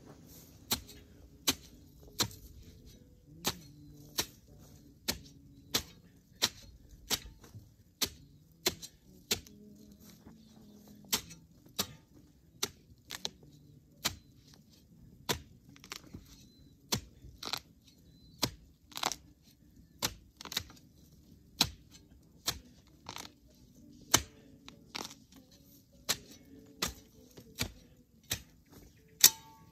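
Repeated sharp strikes of a long-handled digging tool working into an old stacked-stone wall and its overgrowth, roughly one every three-quarters of a second with a couple of longer pauses. Faint background music plays underneath.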